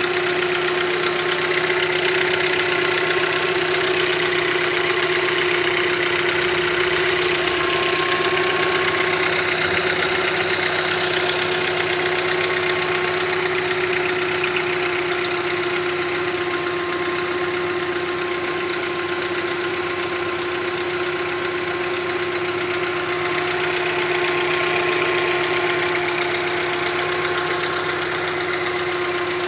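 Hyundai Creta's 1.6 Gamma four-cylinder petrol engine idling steadily with a light fast tec-tec ticking from the top of the engine, which the mechanic calls normal for this engine when cold in the morning, not a fault.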